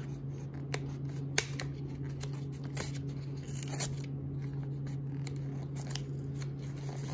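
Fingers peeling and tearing the cardboard tear strip of a trading-card hanger box, making scattered small crackles and ticks over a steady low hum.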